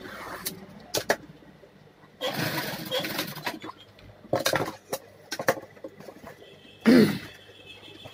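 Fabric being handled and pulled at a sewing machine: rustling with scattered clicks and knocks, and one louder short sound near the end.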